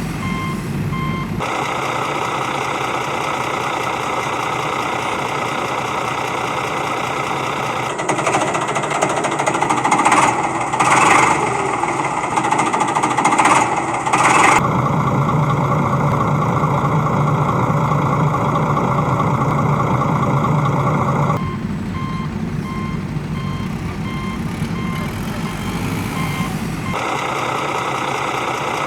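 Vehicle reversing alarm beeping steadily over a running engine. The beeping stops after about a second and comes back about 21 seconds in. In between there are several louder, rougher surges of noise.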